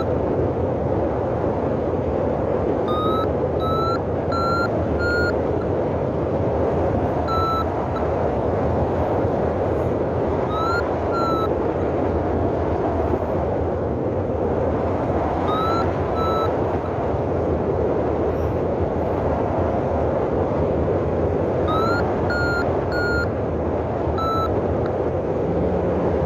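Paraglider's variometer beeping in scattered clusters of short beeps, some rising in pitch, the tone a vario gives when the glider is climbing, over steady rushing wind noise on the microphone.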